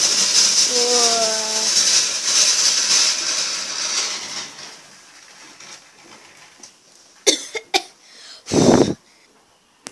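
Firework fountain spraying sparks with a loud crackling hiss that fades out after about four and a half seconds. Near the end come a couple of sharp clicks and a loud, brief rumble of the camera being handled.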